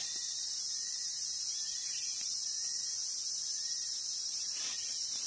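Steady high-pitched chorus of forest insects, with a faint rustle or footstep a couple of times.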